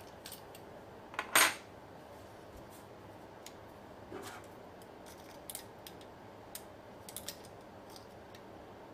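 Parts of a Walther P22 .22 LR pistol being handled during field-stripping or reassembly: scattered light clicks, with one louder clack about a second and a half in.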